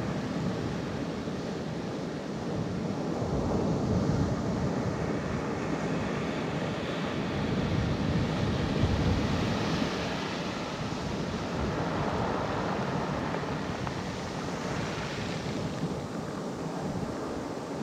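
Ocean surf washing in over a pebble beach and draining back out, swelling louder a few times as each wave comes in.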